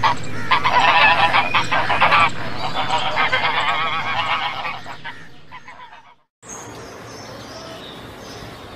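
A flock of waterfowl, likely geese, calling loudly with many overlapping honking calls. The calling cuts off about six seconds in, and after a short gap a quieter, steady background noise follows.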